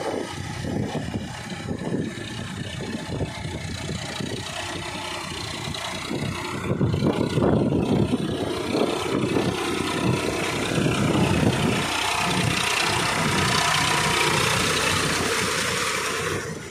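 Sonalika 42 DI tractor's diesel engine running under load as its rear rotary tiller churns a flooded, muddy paddy field. In the last few seconds a steady rushing hiss of churned mud and water comes to the fore, then cuts off suddenly.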